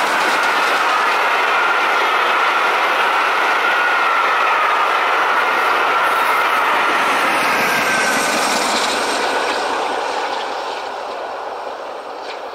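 Steam-hauled passenger train passing close at speed: Merchant Navy class locomotive 35018 and then its coaches make a loud, steady rush of wheels on rail. A faint thin whine runs through it. The sound fades from about ten seconds in as the last coach goes by.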